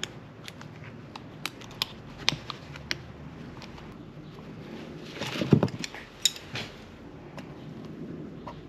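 Handling noise from fitting a rubber CV boot and boot clamp onto a CV axle shaft: scattered light clicks and taps, with gloves rubbing on the rubber. There is a louder knock with a rustle about five and a half seconds in.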